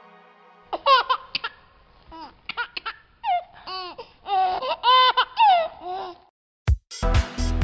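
A young child giggling: a string of short, high-pitched laughs starting about a second in. Near the end a music track with a heavy beat comes in.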